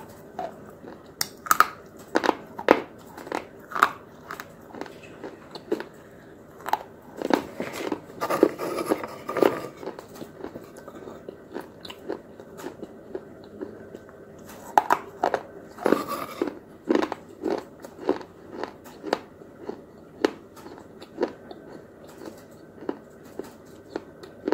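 A person biting and chewing hard, brittle white sticks: sharp crunches about once or twice a second, with runs of faster, denser crunching about a third of the way in and again a little past the middle.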